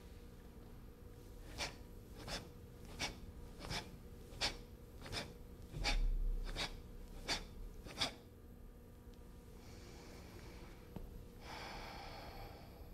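A person repeating a quick thrusting arm strike: ten short, sharp sounds in an even rhythm, about one every 0.7 seconds, with a low thump midway. Two soft breaths follow near the end.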